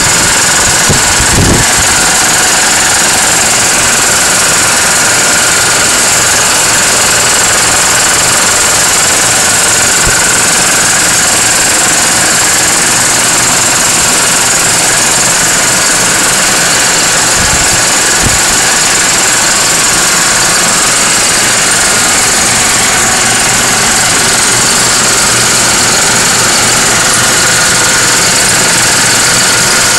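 High-pressure breathing-air compressor for scuba tanks running steadily, a loud, even, knocking machine noise.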